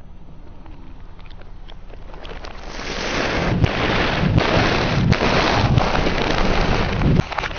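Car tyre rolling over open packets of crisps and snack puffs, crunching the snacks and crinkling the plastic bags. It starts quietly and builds from about three seconds in to a dense crackle with several sharp cracks, then cuts off shortly before the end.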